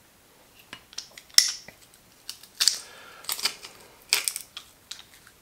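Handheld metal garlic press being worked over a ceramic bowl: an irregular series of short, sharp metallic clicks and clinks.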